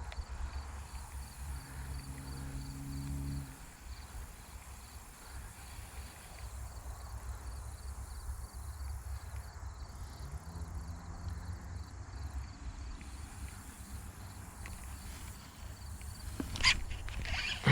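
Low wind rumble on the microphone with two faint, brief low hums, then a sharp loud knock and a falling swish near the end.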